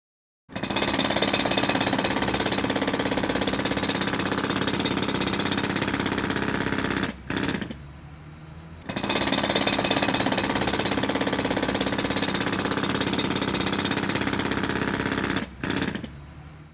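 Sky Industries electric jackhammer hammering rapidly in two long runs of about six seconds each, with a short quieter pause between them.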